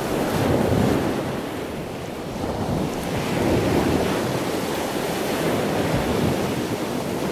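Ocean surf: a steady wash of waves that swells and eases slowly.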